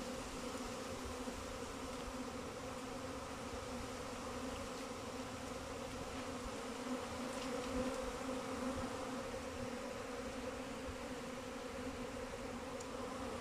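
A swarm of honeybees buzzing as it settles onto a hive frame held up in the air, many bees still flying around it: a steady, even hum.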